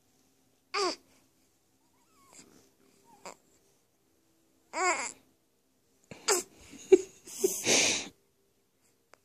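Newborn baby grunting and straining while having a bowel movement: two short whiny grunts, then a run of louder grunts and noisy straining sounds about six seconds in.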